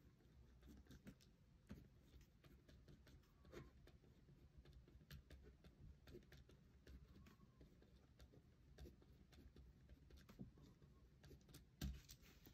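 Faint scratching and light tapping of a gel pen writing on paper, with a soft knock near the end.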